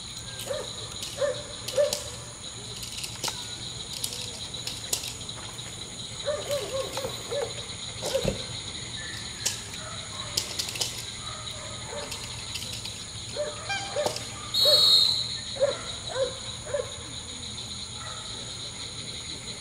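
Crickets trilling steadily through a Malinois's bite work on a suited decoy. Over them come scattered sharp cracks and knocks, short voice-like bursts, and one brief loud shrill note about three-quarters of the way through.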